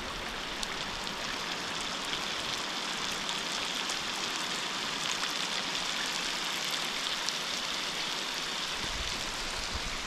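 Heavy rain pouring onto a lake's surface: a steady hiss of falling water with many sharp individual drop ticks.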